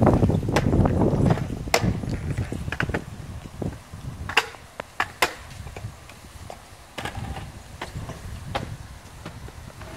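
A scattered series of sharp clicks and light knocks, a dozen or so, spread irregularly, over a low rumble of wind on the microphone that fades out after about two seconds.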